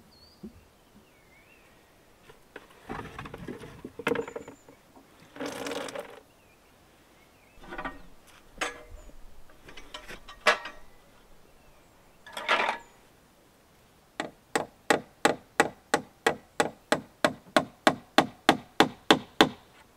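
Hand work with scattered knocks, clinks and rustling as things are handled and set down. Then, about two thirds of the way in, a fast even run of about twenty hammer blows, some four a second, that stops shortly before the end.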